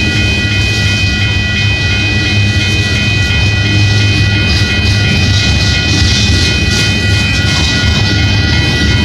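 Empty coal train cars rolling past: a steady low rumble of wheels on rail with several steady high-pitched ringing tones over it.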